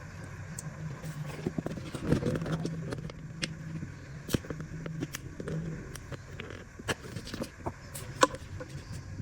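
Scattered light clicks and taps of small plastic toy pieces being handled, the sharpest tap near the end, over a low steady hum.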